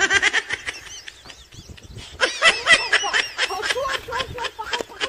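High-pitched giggling laughter sound effect: rapid, repeated giggles, growing louder about halfway through.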